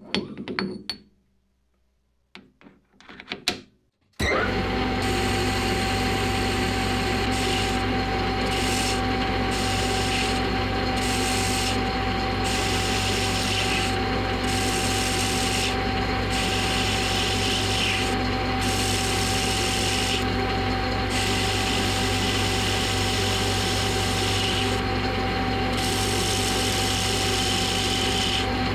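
A few light clicks and knocks, then from about four seconds in a metal lathe runs steadily with a steady hum and whine while a carbide insert cuts the spinning metal workpiece, turning a 60° dead center. The scraping hiss of the cut thins briefly every second or two.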